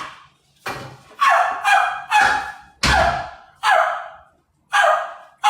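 A man imitating a dog barking with his voice: a string of about seven short, loud barks, each dropping in pitch.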